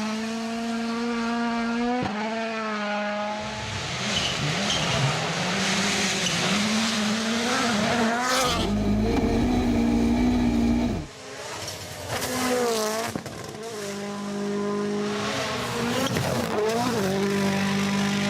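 Rally cars' engines running at high revs, held steady at times and then dropping and rising sharply in pitch several times as gears change and cars pass. There is a heavier, rumbling stretch about halfway through that cuts off suddenly.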